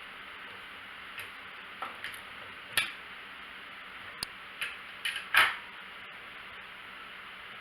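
Irregular light clicks and taps of small hard parts being handled, about eight or nine of them, starting about a second in, with the loudest two-thirds of the way through, over a steady hiss.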